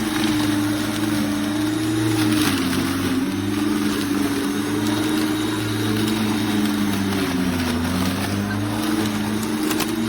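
American Lawn Mower Company 50514 14-inch 11-amp corded electric lawn mower's motor running while mowing, its hum sagging in pitch about three-quarters of the way through as it takes load, then recovering, with a couple of sharp ticks.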